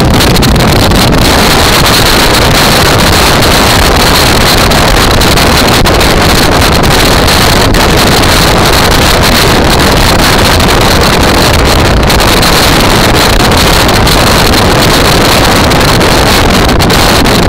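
Loud, steady wind rushing over the microphone of a camera on a moving motorcycle, with the bike's engine and road noise beneath it.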